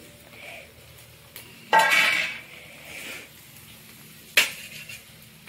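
Steel kitchen utensils clattering: a loud ringing metal clank about two seconds in and a sharp knock near the end, with faint clinks between.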